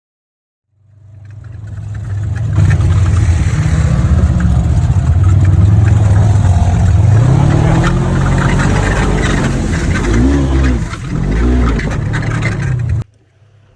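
ATV engine running hard and revving, climbing in pitch about seven seconds in and surging several times near the end, with a rushing noise of tyres churning through muddy water. It fades in and cuts off abruptly near the end.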